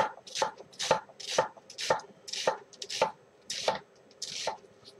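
Kitchen knife chopping an onion on a wooden cutting board, about two even strokes a second.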